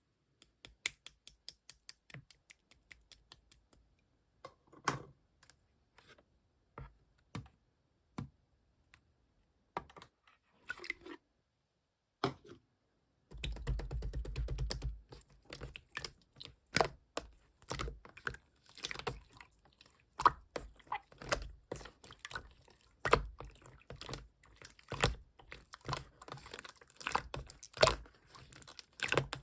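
Black marbled slime being handled by hand, giving sticky clicks and small popping sounds. It starts with a run of quick clicks that slow and thin out, goes sparse for a while, then turns to dense crackling and popping about halfway through.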